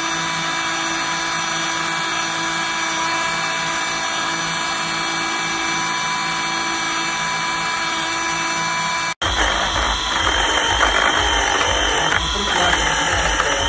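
Small motor of a Unimat 1 Classic hobby machine whining steadily while the drill-press setup bores into a wooden dowel. After a sudden cut about nine seconds in, a rougher, louder sound as the lathe setup turns a workpiece against a hand-held cutting tool.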